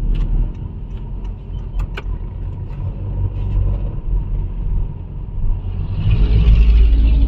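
Honda City car running, a steady low engine and road rumble with a few sharp clicks about two seconds in. It grows louder near the end.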